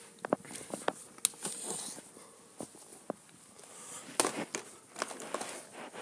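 Plastic DVD cases being handled: scattered sharp clicks and rustling, with a louder cluster of clicks about four seconds in.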